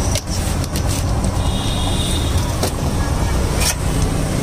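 Steady low rumble of street traffic and running engines, with a few light clicks and knocks over it.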